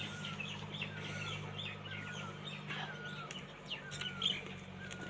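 Small birds chirping: many quick high chirps and a short falling call repeated about once a second, over a low steady hum.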